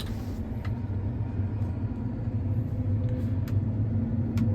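Combine engine running with a steady low rumble, heard from inside the cab. A door clunks shut right at the start, and a few light clicks follow.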